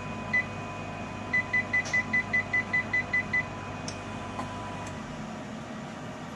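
Control-panel beeper of a 308R vacuum coating unit sounding during its shutdown sequence: a single short high beep, then a quick run of about eleven beeps, some five a second. A steady machine hum underneath drops away about five seconds in.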